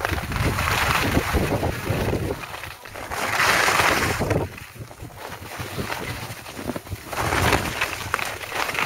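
Skis sliding and scraping over packed snow, louder in swells a few seconds apart as the skier turns, with wind rushing on the microphone underneath.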